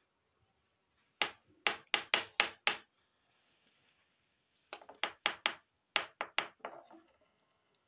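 Two runs of sharp, quick knocks: six about a second in, then about eight more starting near five seconds in, roughly three a second.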